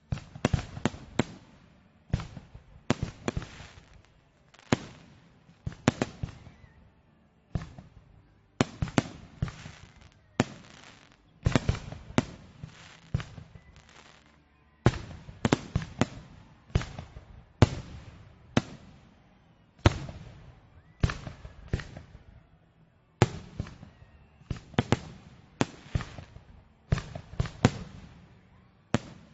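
Fireworks exploding in a steady, continuous barrage of sharp bangs, often several in quick succession, each echoing away.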